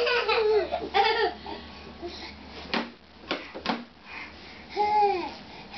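Young child's high-pitched laughter and squeals, in one burst at the start and another near the end, with a few sharp clicks in between.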